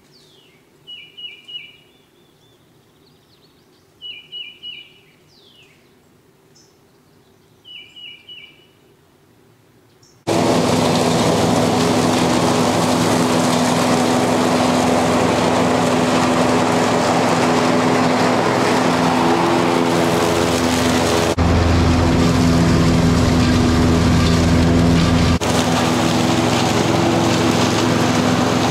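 A bird calls in three short bursts of chirps over a faint low hum. About ten seconds in, a Cub Cadet Ultima ZTX zero-turn mower's engine comes in suddenly and runs steadily as the mower cuts the trail, with a heavier low note for a few seconds near the end.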